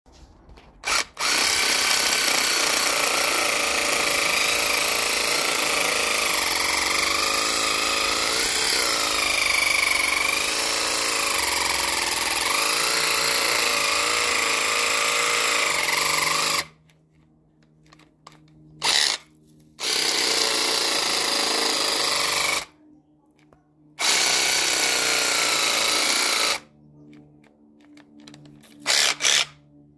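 Cordless mini reciprocating saw cutting into a conifer trunk: after a short blip, one long run of about fifteen seconds with the motor pitch wavering under load, then the saw stops and restarts in two shorter runs of two to three seconds and a few brief blips.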